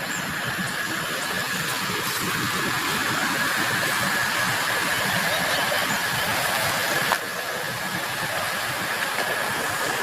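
Steady rushing of flowing stream water, with a thin steady high tone above it and a single short knock about seven seconds in.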